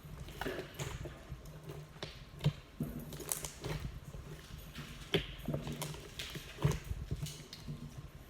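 Glossy slime, softened with hand lotion, being squished and pressed by hand, making irregular sticky clicks and small wet pops.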